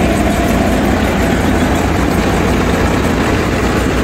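Eicher 333 diesel tractor running steadily under load, driving a thresher through its PTO at about 1200 RPM, with a low, even throb.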